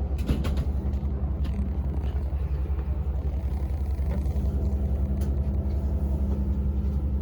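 Tour boat's engines running steadily: a low, even drone, with a few faint clicks over it.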